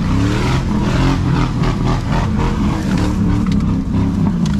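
A truck engine revving hard, its pitch climbing and dropping several times and falling away near the end, with scattered knocks and rattles over it.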